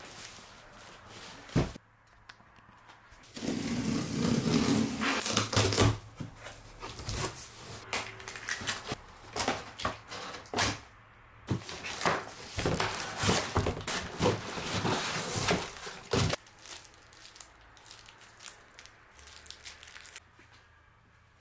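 Cardboard shipping box and its packing being handled as a stepper exercise machine is unpacked: rustling, scraping and light knocks in irregular bursts, which die down after about sixteen seconds.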